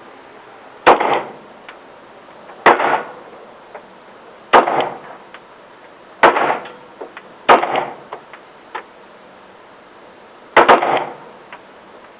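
A Sig Sauer .40 calibre pistol firing single shots one to three seconds apart, seven in all, the last two in quick succession near the end. Each shot cracks sharply and rings out briefly, and fainter pops come in between.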